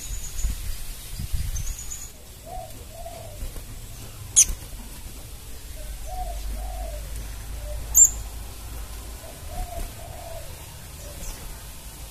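Crimson sunbird giving two sharp, very high chirps that sweep downward, one about four seconds in and one about eight seconds in. Underneath, another bird repeats a low, arched hooting phrase three times.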